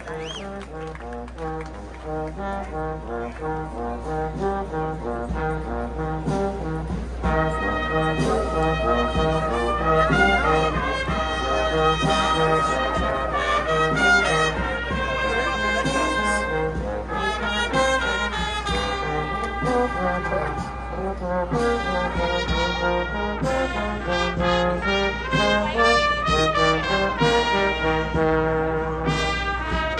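Brass band playing, with bass notes alternating on the beat; the fuller melody comes in about seven seconds in.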